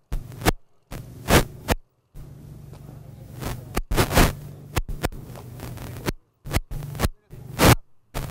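Broken-up, faulty audio track: a low steady hum keeps being cut by loud irregular crackles and short gaps of complete silence, the sign of recording dropouts rather than a clean sound of the helicopter.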